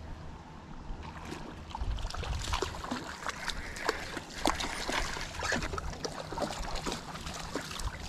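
Irregular splashing and dripping in shallow river water as a hooked smallmouth bass is reeled in and lifted out, with a dog wading alongside.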